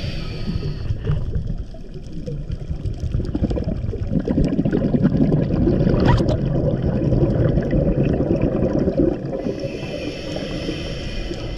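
Water churning and gurgling around a submerged camera, a muffled low rumble that grows louder in the middle. A hiss comes in at the start and again a couple of seconds before the end.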